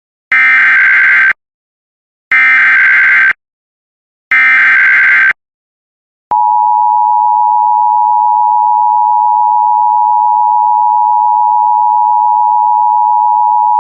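Emergency Alert System header: three one-second bursts of warbling data tones, about a second apart, then about six seconds in the steady two-tone attention signal starts and holds, announcing an emergency alert.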